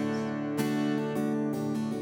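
Acoustic guitar strumming chords, about two strums a second.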